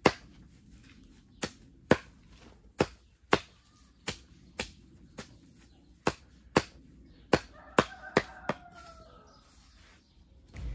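A hand blade chopping green vetch stems against a wooden stump, in sharp single chops, about a dozen at an uneven pace, which stop a couple of seconds before the end. The vetch is being chopped up as green manure to mix into the soil.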